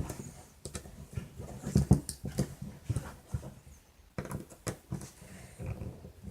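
Irregular small clicks and knocks of hand tools and plastic RC truck parts being handled while a camber link is worked loose.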